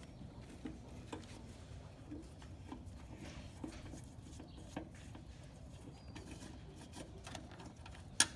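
Faint low bird calls, like a dove's cooing, with scattered light clicks and one sharp click near the end.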